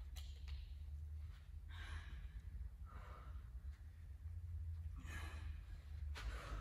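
A woman breathing hard as she recovers from exertion, with about five heavy out-breaths spaced a second or so apart. A steady low hum runs underneath.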